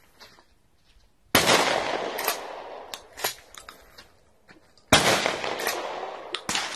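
Two shots from a Remington 870 12-gauge pump-action shotgun, about three and a half seconds apart, each with a long echo fading over a second or so. A few short sharp clacks fall between and after the shots.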